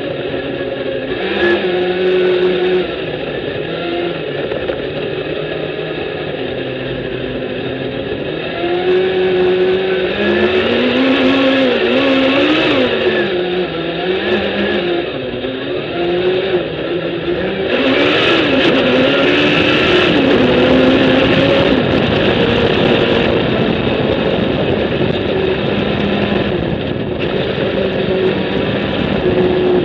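Sand rail's Suzuki Hayabusa inline-four motorcycle engine running under throttle, its pitch rising and falling over and over as the rail works through the dunes. About two-thirds through, a loud rushing noise swells over the engine for a few seconds.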